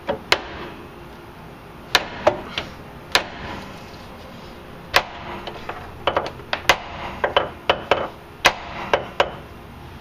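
Sharp metal-on-metal taps and knocks on a pitman arm puller clamped under heavy tension on a steering gearbox's pitman shaft. The blows shock the tapered pitman arm loose. They come irregularly, a few spaced ones at first and then a quicker run of about a dozen in the second half.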